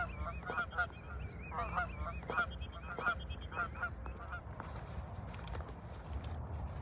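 Geese honking, a run of short calls that die away after about four and a half seconds, with a higher, wavering call from another bird repeating in the first half.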